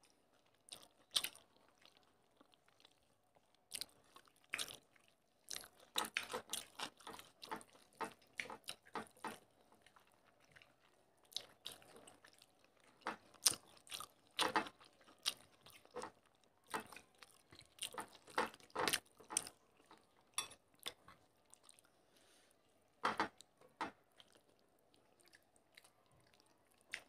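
Two people eating rice and fish curry with their hands: short, irregular chewing and mouth sounds with quiet gaps between them.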